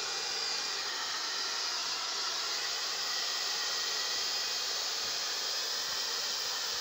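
Hair dryer blowing steadily, drying freshly washed chickens.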